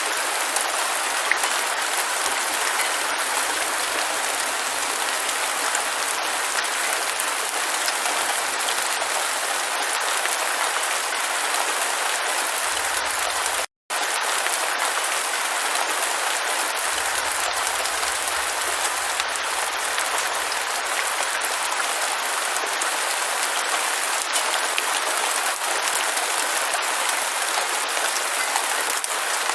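Steady heavy rain, a dense even hiss with little low rumble, that cuts out for a moment about fourteen seconds in and then carries on.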